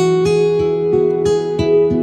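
Instrumental background music: a plucked acoustic guitar melody with notes picked about four times a second, a new phrase starting with a sharp struck note right at the beginning.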